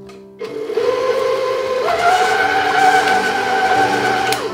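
Electric stand mixer motor switched on about half a second in, its flat paddle beating a stiff mass of steamed glutinous rice into mochi. Its steady whine steps up in pitch about two seconds in as the speed is raised, and it shuts off just before the end.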